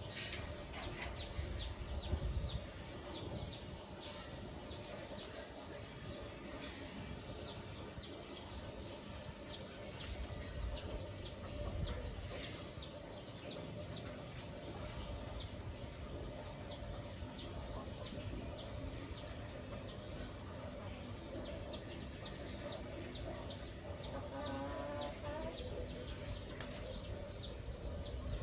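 Chickens calling: a steady run of short, high, falling peeps, about two a second, with a lower clucking call near the end.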